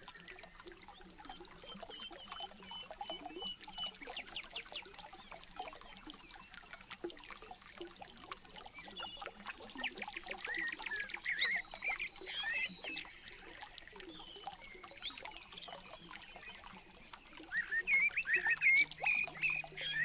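Small woodland stream trickling and splashing over rocks, with small birds chirping and singing over the water; one bird gives a run of quick repeated high notes near the end.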